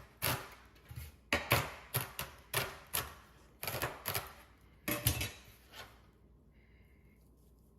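Roasted pumpkin seeds being spooned out and sprinkled over soup: a run of sharp clicks and taps, two or three a second, that stops about six seconds in.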